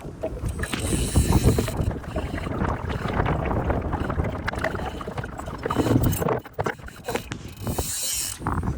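Wind rumbling on the microphone over water slapping against a small boat's hull, with scattered light knocks.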